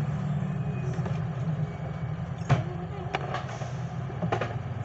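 A few sharp clicks and taps in the second half, the loudest about halfway through, as a gold watch case and small tools are handled on a work table, over a steady low rumble of traffic.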